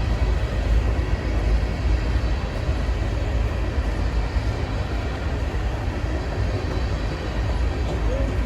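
Norfolk Southern freight train rolling past: a steady, deep rumble of cars and wheels on the rails, with no horn.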